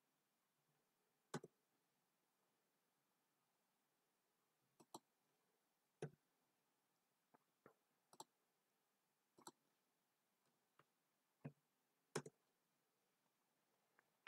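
Computer mouse and keyboard clicks: a dozen or so short, sharp clicks, some single and some in quick pairs, spaced a second or two apart, with near silence between them.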